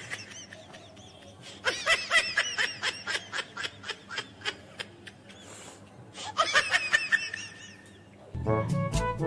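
A person laughing in two bouts of quick, high-pitched giggles, one starting about a second and a half in and a shorter one about six seconds in. Music with brass starts near the end.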